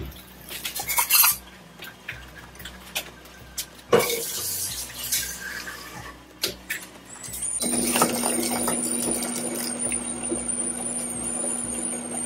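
Metal cooking pots and a ladle knocking and scraping while a liquid is ladled and poured from a pan into a steel pot. About halfway in, a steady hum with a faint high whine sets in underneath.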